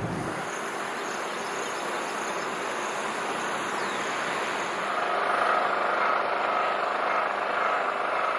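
Steady road and tyre noise from a car driving along a concrete road, with a steady higher hum joining about five seconds in.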